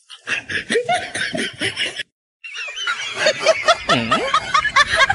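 Laughter of the kind dubbed onto comedy clips: a run of quick, repeated giggles. It breaks off into a short silence about two seconds in, then comes back.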